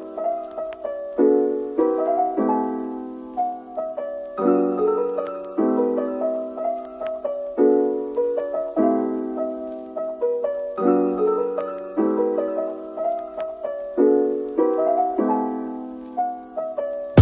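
Background music: a piano piece, each note or chord struck and left to fade, the phrase repeating.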